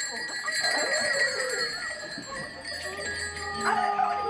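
Sustained bell-like ringing tones, with wavering, gliding pitched sounds weaving over them.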